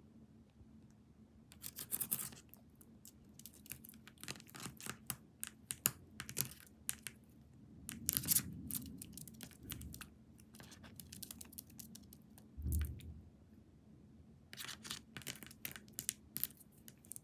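Pacific parrotlet bathing: splashing and fluttering in shallow water in short, irregular bursts, with the busiest flurries about 2 s, 8 s and 15 to 17 s in, and a single low thump near 13 s.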